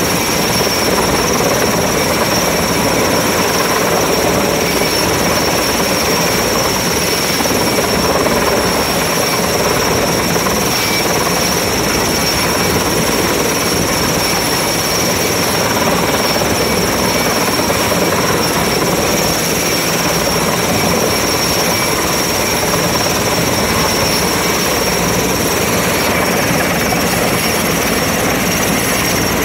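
Helicopter hovering low during a lift: a loud, steady rotor and engine noise with a thin high whine running through it.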